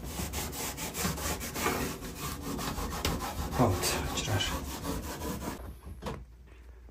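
Rapid back-and-forth scraping and rubbing strokes on the countertop as the area around the sink opening is cleaned up. The strokes stop about five and a half seconds in, leaving a few faint knocks.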